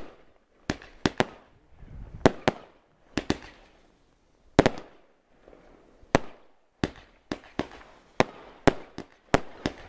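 Consumer fireworks going off in the air: a rapid, irregular string of sharp bangs, about seventeen in ten seconds, coming closer together in the second half.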